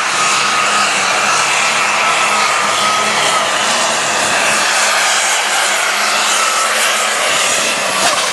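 Light super stock pulling tractor's turbocharged diesel engine running flat out under load as it drags the weight sled: a steady, loud roar with a thin high whine wavering over it.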